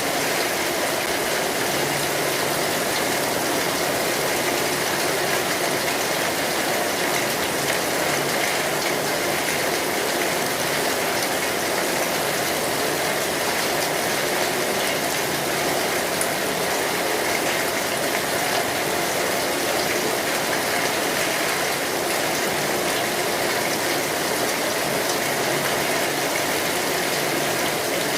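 Steady rain falling on a metal roof, an even, unbroken patter.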